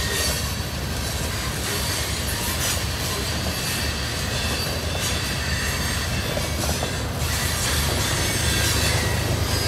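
CSX freight train's covered hoppers and boxcars rolling past at close range: a steady rumble and clatter of steel wheels on rail with thin high wheel squeal. The low rumble grows near the end as locomotives draw near.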